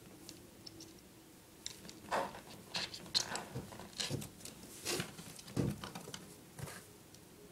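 A cat scrabbling to work its head free of a cable opening in the wall: irregular rustling, scraping and light knocks that start about two seconds in, as the cables and the loosened wall plate are dragged about.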